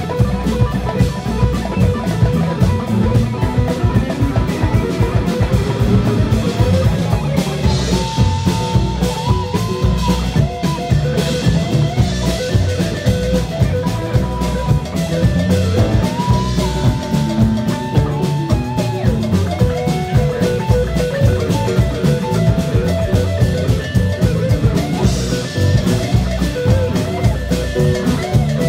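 Live rock band playing a long instrumental passage: a drum kit keeps a busy, steady beat under guitar and keyboard parts, with a lead line sliding up and down in pitch.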